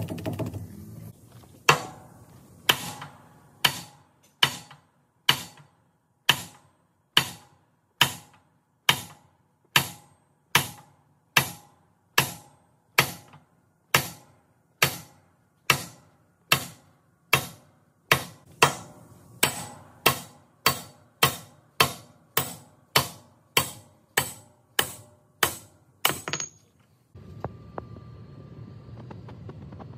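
Sledgehammer blows on a steel drift punch driving the king pin out of a Peterbilt semi truck's steering knuckle: a long series of sharp metal-on-metal strikes, each ringing briefly. The blows come a little over one a second at first, quicken to about two a second, and stop a few seconds before the end.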